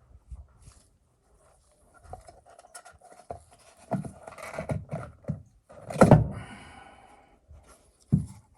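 Clatter and knocks of tools and parts being handled during an oil filter change: a run of light knocks, a loud clunk with a brief ring about six seconds in, and another knock near the end.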